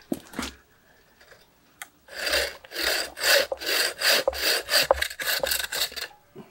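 Bow saw cutting into a cut-off section of ficus trunk with quick back-and-forth strokes, about three a second, starting about two seconds in and stopping near the end.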